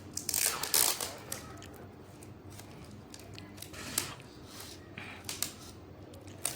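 Plastic tape being pulled off and wrapped around a broken cricket bat: crinkling rustles and scattered ticks, with the loudest burst about half a second in.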